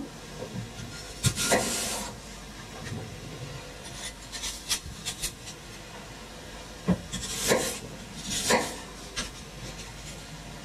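Kitchen handling noises: scattered rustling, rubbing and light knocks as vegetables and fruit are handled and packed into a blender bottle, the loudest rustles about a second and a half in and again around seven to eight seconds in.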